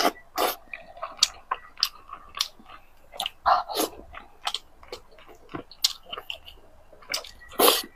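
Close-miked chewing and lip smacking of soft braised pork belly. Irregular short clicks and smacks, the loudest a little before the end.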